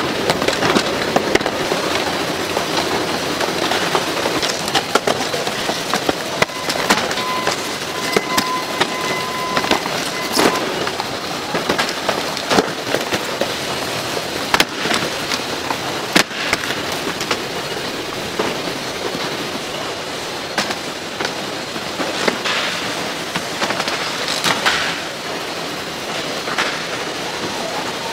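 Instant-noodle cup packaging line running: steady machinery noise with constant rattling and clattering knocks. A steady electronic tone sounds for a few seconds about seven seconds in.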